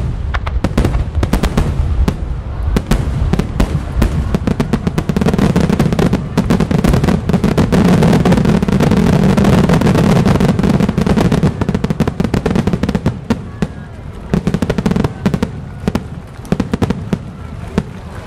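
Star mine fireworks barrage: rapid, overlapping bangs and crackles in quick succession, loudest and densest in the middle, thinning out near the end.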